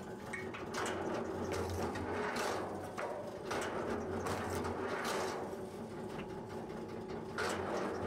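Log splitter running with a steady motor hum that swells and eases in cycles as its ram drives log sections into the wedge, with repeated bursts of creaking and cracking as the wood splits apart.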